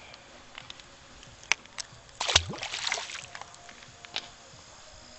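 A splash about two seconds in as a smallmouth bass is let go into the river, with a few small clicks and knocks of handling around it.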